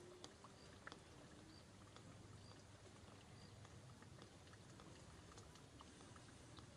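Near silence: faint outdoor ambience with scattered small clicks and a few short, high chirps.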